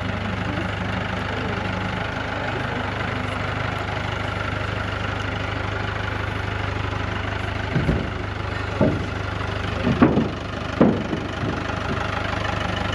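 An engine idling steadily, with a handful of short clunks about eight to eleven seconds in.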